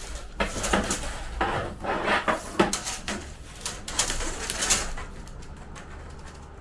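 Plastic electrical cable trunking being handled and fitted: irregular clicks, knocks and rustling, busiest in the first five seconds and quieter towards the end.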